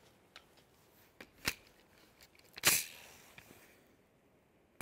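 A few sharp clicks and knocks of handling, spaced about a second apart, the loudest a little under three seconds in; no shots are fired.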